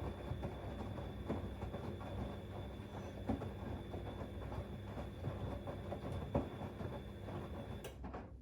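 Siemens Extraklasse XLS 140 A front-loading washing machine tumbling a load of cleaning rags on its 90 °C boil-wash program: a steady motor hum with a thin high whine and irregular soft knocks from the drum. The sound stops abruptly near the end.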